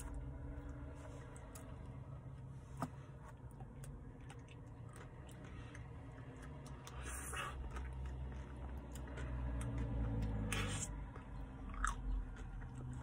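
Close mouth sounds of someone eating a cherry-dipped soft-serve cone: licking, biting into the hard cherry coating and chewing, with scattered small clicks and crunches.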